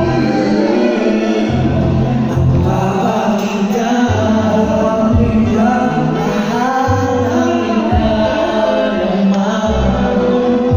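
Live R&B/hip-hop vocal performance: a singer's melodic voice, with long held and sliding notes, over a backing track with deep bass notes that change every second or two, heard through the venue's PA.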